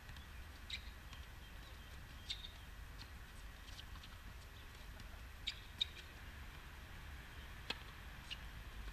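Faint sounds of a doubles tennis rally on a hard court: scattered short, high squeaks and ticks, the loudest pair about five and a half seconds in, and a sharper racket-on-ball hit near the end, over a low steady hum.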